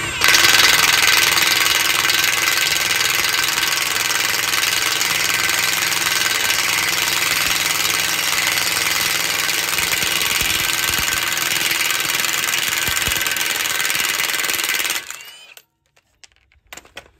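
Cordless impact wrench spinning the lower nut off a tie rod end's ball-joint stud. It runs in one long continuous stretch and stops near the end as the nut comes off the threads.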